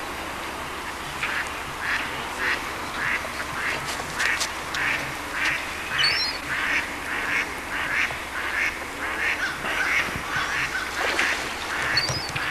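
Duck quacking over and over in a steady run of short calls, about two or three a second.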